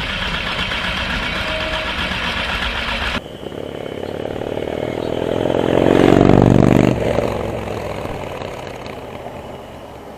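Motorcycle engine running, with an abrupt change about three seconds in; the engine then rises in revs to a peak around six to seven seconds in and dies away.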